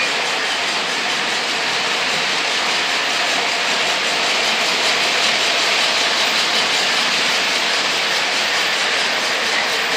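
Lionel O gauge model trains running on three-rail track: a steady rolling rumble of metal wheels, with a Lionel steam Atlantic and its short freight train passing close by.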